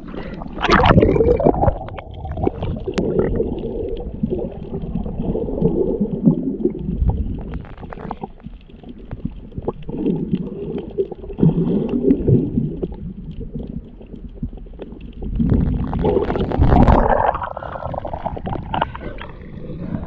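Muffled water sloshing and gurgling heard through a GoPro held under the sea surface, with louder splashing about a second in and again near the end as the camera goes into and comes out of the water.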